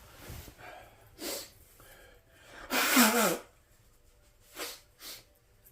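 A person sneezing once, loudly, about three seconds in, with a few shorter, quieter breath-like sounds before and after.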